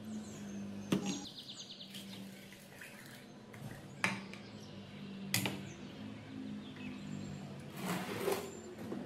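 A few separate knocks and clunks of a rusty electric water pump and its fittings being handled and shifted on a workbench, over quiet background music.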